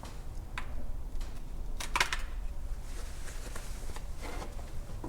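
Scattered light clicks and taps of tools and parts being handled, two sharper clicks about half a second and two seconds in, over a low steady hum.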